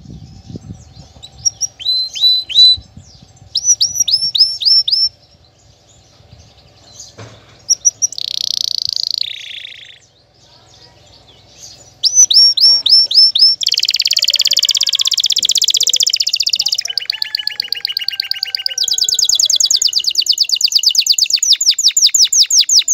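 Male domestic canary singing its courtship song: a string of phrases, each a rapid run of one repeated note, with short pauses early on, then from about halfway a loud, unbroken sequence of a fast trill, a faster even trill and a long run of repeated falling notes.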